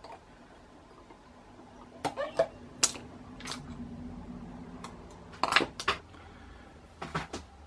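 Scattered light clicks and clinks, about half a dozen separate ticks, of fly-tying tools such as scissors being handled at the vise.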